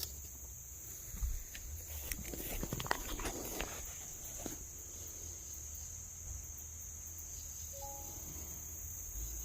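Crickets chirping in a steady high-pitched drone, with a few faint clicks and rustles in the first half.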